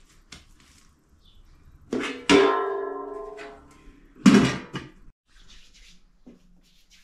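Large round metal cover clanging onto an aluminium basin of dough. The first clang rings on for about a second and a half, and a second, shorter clang comes about two seconds later.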